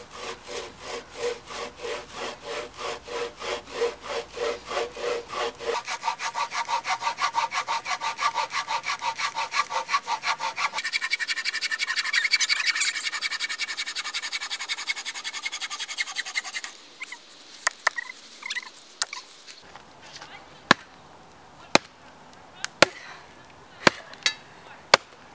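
A bow saw cutting a log in even back-and-forth strokes, about two a second, quickening twice to a fast rasp. It then gives way to sharp single knocks about a second apart, an axe striking a log set on a chopping block.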